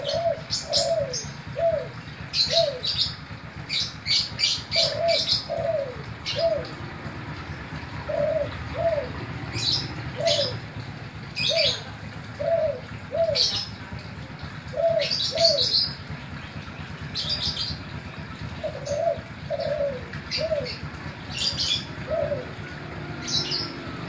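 Kelantan-type spotted dove (tekukur) cooing in repeated phrases of three to five short, falling coo notes, with short pauses between phrases. Brief high chirps come in between the phrases.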